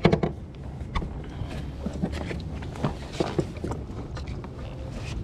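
Irregular knocks and thuds on a plastic fishing kayak's hull and deck as a freshly landed trout struggles and is handled.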